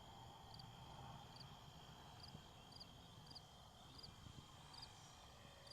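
Near silence: faint outdoor ambience with a small high chirp repeating about twice a second over a faint steady high hum.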